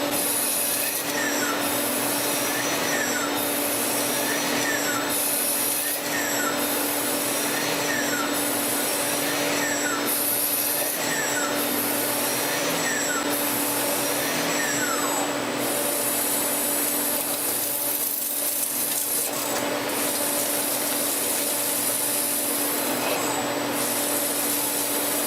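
CNC lathe running: a steady motor hum under a rough metal-cutting noise that repeats about every second and a bit, each pass ending in a falling whine, then runs on without a break for the last third.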